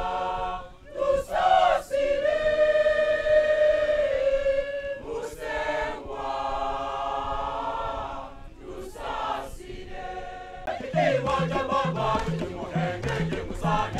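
Choir singing a hymn in long held phrases, with brief breaks between them. About eleven seconds in, arched harps join with a quick plucked rhythm and pulsing low notes under the voices.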